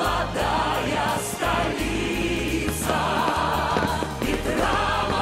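Choral music: a choir singing sustained notes over a low bass accompaniment.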